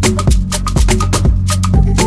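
Background music with a quick, busy percussion beat of sharp strikes and short pitched notes.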